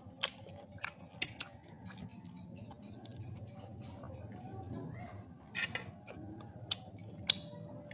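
Someone eating roast pig (lechon) by hand: scattered sharp clicks and soft crackles of chewing and of fingers pulling meat and skin apart, a couple of louder clicks in the second half, over a faint low hum.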